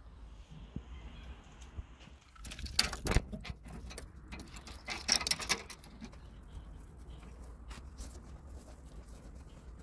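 Clicks, knocks and light rattling from handling a charcoal smoker's metal grill grate and the smoked mackerel on it, with a cluster of sharp knocks about three seconds in and another around five seconds.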